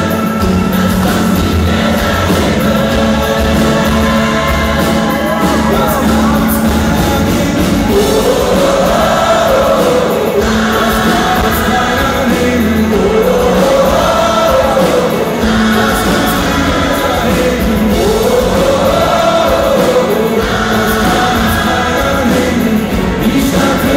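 A large gospel choir singing with a live rock band of guitars, drums and keyboards. The sung melody rises and falls in repeated phrases over a steady bass.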